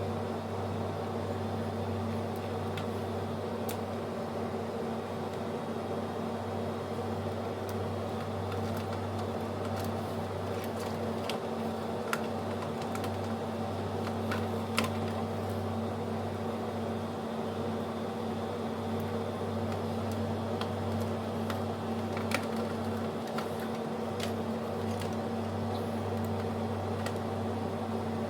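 Steady mechanical hum at an even pitch, with a few light clicks and taps scattered through it.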